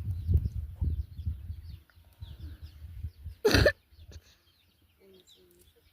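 Outdoor village ambience: small birds chirping throughout, with irregular low thumps for the first couple of seconds and one short, loud burst about three and a half seconds in.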